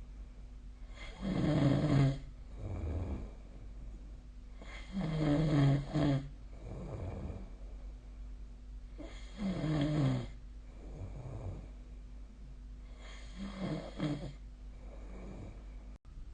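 A sleeping person snoring, four loud snores about every four seconds with fainter breaths between, over a steady low hum.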